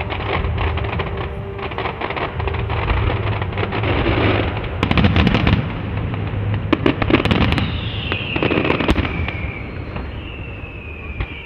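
Fireworks going off: continuous crackling and popping, with sharp bangs about five and seven seconds in. Two whistles falling in pitch sound in the second half.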